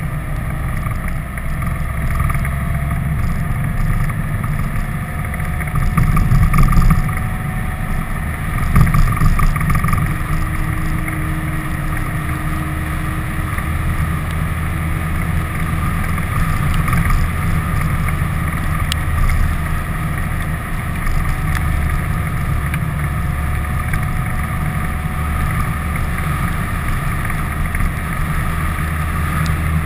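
Wind buffeting an externally mounted camera over the steady low rumble of a vehicle driving along a road, with stronger gusts about six and nine seconds in.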